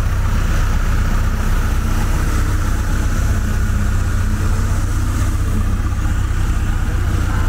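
JCB backhoe loader's diesel engine running steadily at idle.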